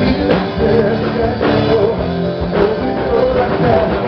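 Live worship song with singing over a full band: electric guitar, bass and drums, with a steady beat.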